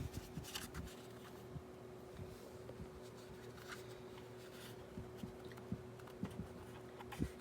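Dreo tower fan running faintly as a low steady hum, with scattered light taps and clicks of handling.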